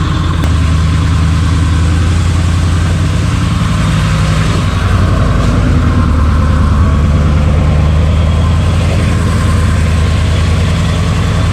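Large bus engine running at low speed close by, its pitch shifting slightly a few times as it creeps along.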